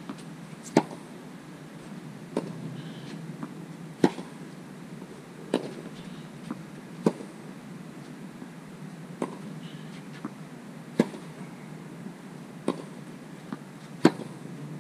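Tennis balls struck by rackets in a baseline rally: sharp hits about every one and a half to two seconds, alternating louder and fainter, with softer ball bounces on the court between them.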